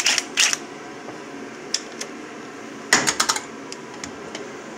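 Scattered sharp metallic clicks from hand tools and parts being handled on an engine, with a quick run of about five clicks about three seconds in, over a steady background hum.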